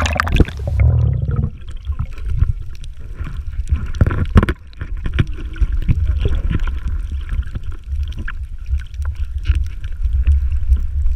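Muffled underwater sound of shallow sea water picked up by a submerged camera: a dense low rumble of moving water with many small clicks and knocks. There is a splash as the camera goes under at the start and a louder knock about four seconds in.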